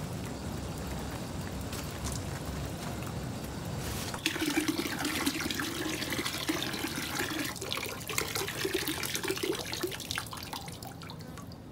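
Water pouring from a garden hose into a plastic tub partly full of water: a quieter, low running sound while the hose end lies in the tub, then about four seconds in a stream splashing onto the water surface as the hose is lifted, growing a little fainter near the end.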